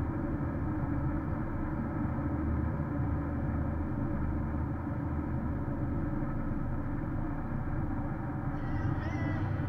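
Steady in-cabin driving noise of a Porsche Cayenne S at highway speed on a snow-covered road: an even low rumble of tyres and engine.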